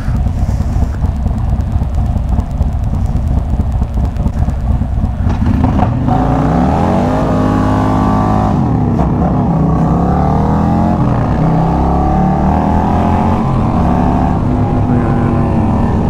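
Harley-Davidson V-twin motorcycle engine under way with heavy wind rush. About six seconds in, the engine note comes through clearly and climbs in pitch, drops back and climbs again several times as the bike accelerates through the gears.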